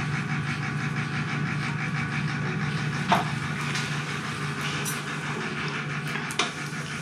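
Steady mechanical hum with a fast, even pulsing, broken by a couple of sharp clicks.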